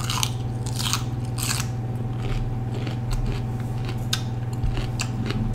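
Crisp, wet crunching as a mouthful of raw bell pepper is bitten and chewed, a crunch roughly every second, growing fainter after the first few seconds.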